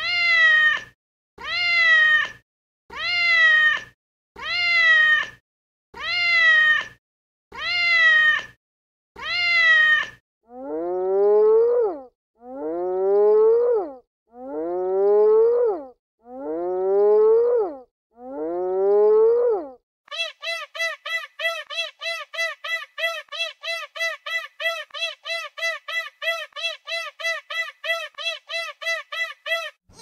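Animal calls in three repeated runs: seven identical calls falling in pitch, about one every second and a half; then five longer, lower calls that rise in pitch; then about ten seconds of short calls repeating rapidly, about three a second.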